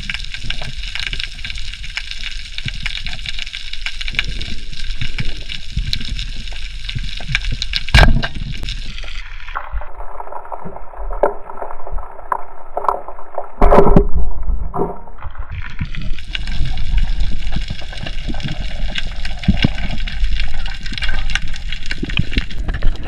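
Water noise picked up by a camera on a freediving spearfishing dive: a steady crackly wash, with a sharp crack about eight seconds in. A muffled stretch follows, with a loud rush of water about fourteen seconds in.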